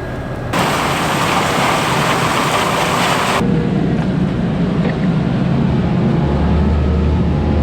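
Harvest machinery running: a loud, even rushing hiss, then, after an abrupt change about three and a half seconds in, a steady low engine hum.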